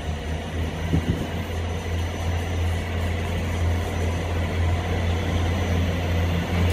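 ScotRail Class 158 diesel multiple unit approaching along the platform, its underfloor diesel engines droning steadily and growing louder as it nears. A brief knock about a second in.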